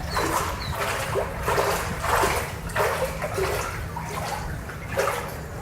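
Barefoot footsteps wading through water, a splash with each step in a steady rhythm of about two steps a second.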